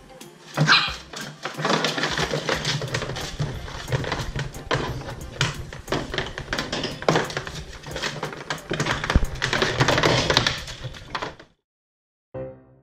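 Corgi puppy scrambling about on a wooden slatted floor and plastic tray: a busy run of claw clicks, scratches and knocks. It stops suddenly near the end, and a few soft piano notes begin.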